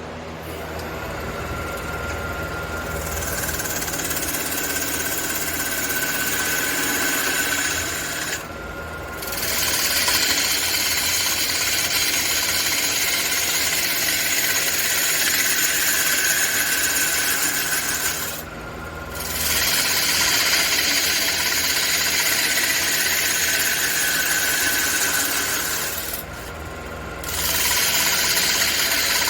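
Wood lathe running with a steady motor hum while a large aromatic red cedar workpiece spins against a tool held to it. The contact makes a loud hissing squeal in long passes, broken three times by short pauses.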